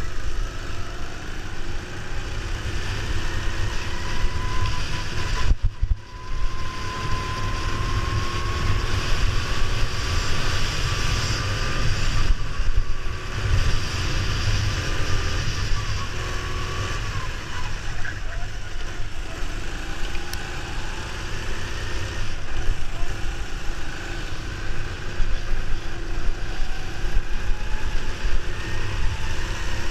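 Go-kart engine running at speed on the track, its note rising and falling with the throttle through the corners, over wind noise on the microphone. The engine note dips sharply for a moment about six seconds in.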